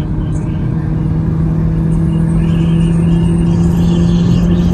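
Mk7 Volkswagen GTI's 2.0-litre turbocharged four-cylinder heard from inside the cabin, accelerating under load with an engine note that climbs slowly and steadily, over road and wind rumble.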